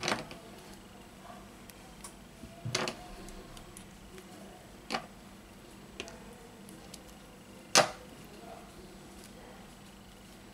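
Small plastic spring clamps clicking shut on the edges of a phone, holding a newly glued display down while the adhesive sets. There are several sharp clicks a second or two apart, the loudest about eight seconds in, with light handling noise between them.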